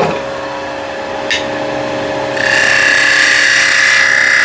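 Vicmarc VL300 wood lathe running with a steady hum; about two and a half seconds in, a turning tool bites into the spinning chestnut blank, giving a loud, steady cutting hiss with a high whine.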